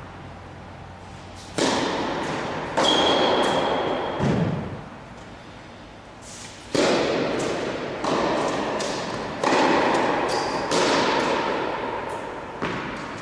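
Tennis balls struck by rackets and bouncing on an indoor court: about eight sharp hits a second or two apart, each ringing on in the hall's long echo.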